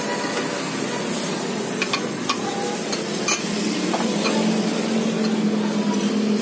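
A porridge ladle and bowls clink a few times over a steady hiss. A steady low hum comes in about halfway through.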